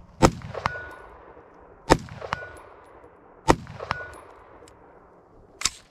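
Three rifle shots from a budget AR-15, about a second and a half apart, each followed less than half a second later by the ring of the bullet striking a steel silhouette target. A smaller sharp click near the end.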